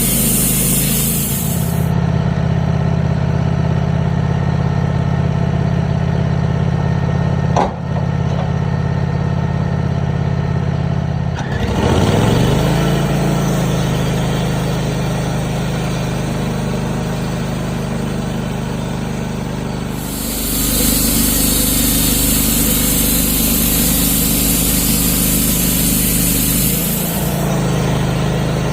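Wood-Mizer portable band sawmill running steadily. Around 12 seconds in the engine note dips and then rises, and from about 20 to 27 seconds the sound grows brighter and harsher. There is a single sharp knock near 8 seconds.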